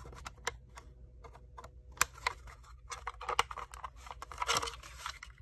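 Irregular light clicks and taps of a plastic smoke detector being handled, with a few sharper clicks about two and three seconds in. The detector sounds no alarm or chirp; its owner thinks it has died.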